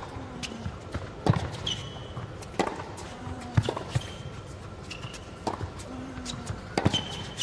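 A tennis rally on an indoor hard court: the ball is struck back and forth by rackets about every second and a half, with smaller bounces of the ball on the court between the strikes. Short shoe squeaks come in between the shots.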